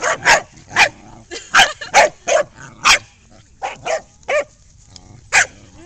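Corgis barking and yipping: about a dozen short, sharp barks in quick, irregular succession.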